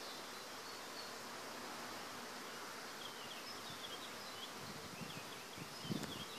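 Steady faint hum of honey bees foraging in the crowns of flowering black locust trees. A few low rumbles come in near the end.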